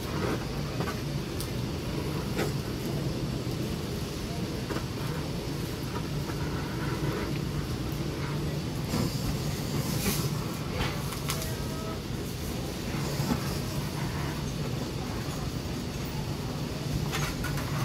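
Handheld gas blowtorch running steadily as its flame sears the skin of braised pig's feet (jokbal), charring it for a smoky fire flavour. A few light clicks and knocks come from the meat and tools being handled on a metal tray.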